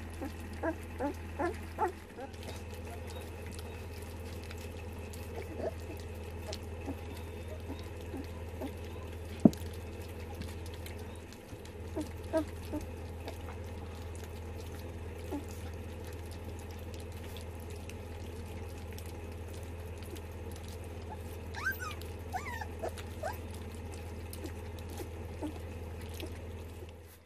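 Young puppies lapping and slurping soft wet mash from a steel feeding dish and from a hand, with small wet smacks and clicks over a steady low hum. One sharp tap stands out about a third of the way in.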